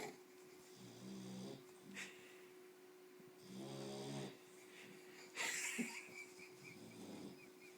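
Snoring in slow, regular breaths, a low snore roughly every two and a half to three seconds. A short hissing noise comes about five and a half seconds in, over a faint steady hum.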